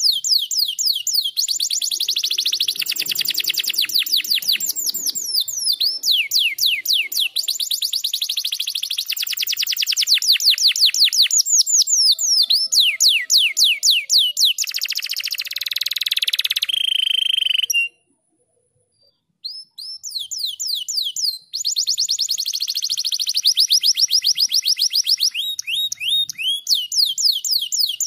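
Domestic canary singing: long, fast trills of rapidly repeated sweeping notes, with one held note, then a short pause about two-thirds of the way through before the trilling resumes.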